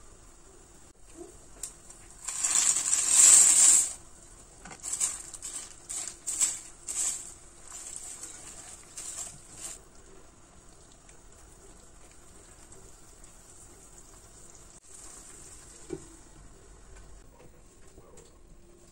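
Dry fusilli pasta poured into a pot of simmering broth, making a loud rattling pour about two to four seconds in. It is followed by several short scrapes as a silicone spatula stirs it in, then a faint simmer.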